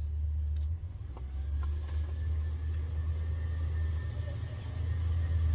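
Steady low rumble of an idling engine, with light rustling of clothes being handled.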